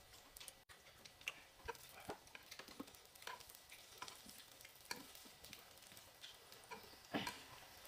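Faint sizzling of potato slices, mushrooms and green beans on an electric grill pan, with light scattered clicks of chopsticks against the pan and plates, one a little louder about seven seconds in.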